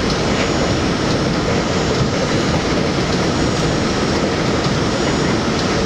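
New York City subway J train running on an elevated steel track, a steady loud rumble of wheels on rails, heard from inside the front car.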